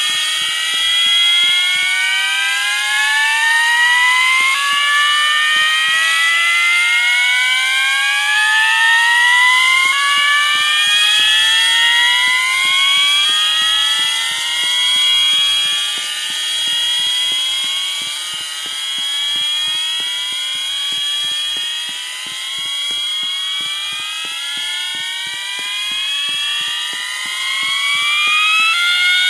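Several fire alarm horns set to slow whoop sound together out of step, so their rising sweeps overlap and restart every few seconds. A steady high tone runs under them. The building's fire alarm system is in alarm during a test.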